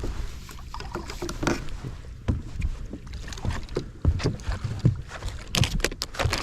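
Irregular knocks and low thumps of handling in a small fishing boat as a bass is brought in, with a cluster of sharp noise bursts near the end.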